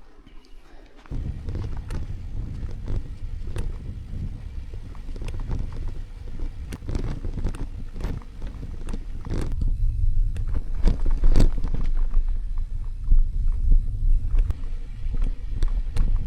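Wind buffeting the microphone on a downhill bicycle ride, a low rumble that starts about a second in and grows stronger in the second half, with frequent small knocks and rattles from the bike on the rough dirt road.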